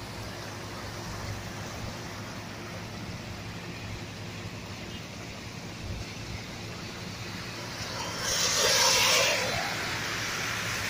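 A car drives through deep floodwater on a street. About eight seconds in, its tyres throw up a loud splash and spray that lasts a second or two, over a steady rushing background of water and traffic.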